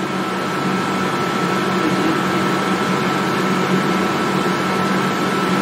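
Steady mechanical hum with a thin, constant whine in it, from a powered-up CNC milling machine standing idle, its spindle not yet started.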